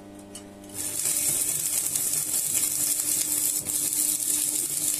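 Stick welding with an Aeron BX1-160 AC arc welder: about a second in, the electrode strikes an arc, which then crackles and sizzles steadily.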